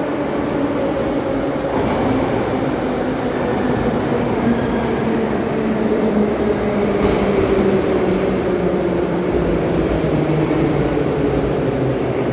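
Metro train running, its rumble steady and its motor whine slowly falling in pitch as the train slows down.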